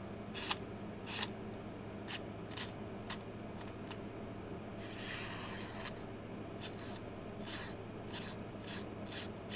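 A sharp Trivisa folding-knife blade slicing through magazine paper: about a dozen short cutting strokes at uneven intervals, with one longer slicing stroke about five seconds in. Each stroke is a paper-cut test of the blade's factory edge.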